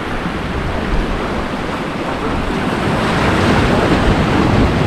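Waves washing and breaking, with strong wind buffeting the microphone in uneven gusts; the wash grows fuller about three seconds in.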